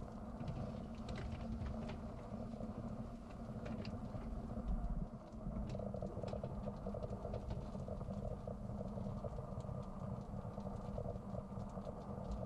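Dishwasher running: a steady low hum with scattered light ticks, and one louder low thump about five seconds in.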